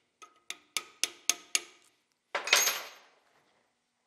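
Hammer tapping on a torch-cut bearing race on a Koenders windmill compressor's steel shaft to drive the bearing off: six quick ringing taps, about four a second. About two seconds in comes a single louder metal clatter.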